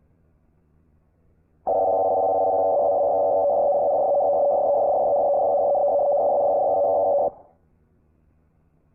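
Emergency Alert System attention tone: a loud, steady, multi-pitched alarm tone that starts abruptly about two seconds in and stops sharply after about five and a half seconds.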